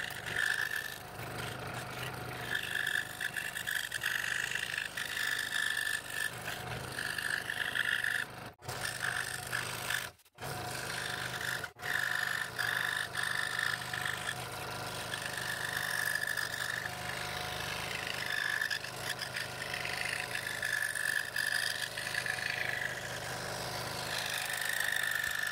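Scroll saw running with a fine No. 3 blade cutting small interior fretwork in wood: a steady motor hum under the rasping of the blade, which swells and eases as the work is fed and turned. The sound breaks off very briefly three times.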